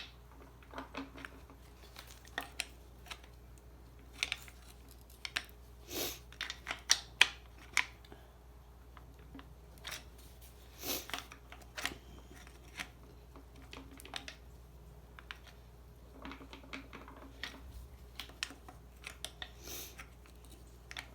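Flathead screwdriver prying and working a neutral safety switch off the shaft of an AW4 automatic transmission: irregular clicks, taps and short metal scrapes, busiest about six to eight seconds in and again around eleven seconds.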